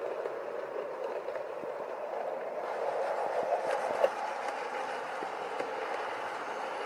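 Hornby OO gauge 4-VEP model electric multiple units running on sectional track: a steady whirring of the motor and wheels with light clicks over the rail joints. It grows louder about three seconds in as a unit comes toward the camera, with one sharper click about four seconds in.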